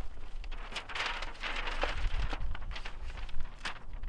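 Paper target rustling and crinkling in short irregular bursts as it is handled and pressed flat against a tyre, over a low rumble.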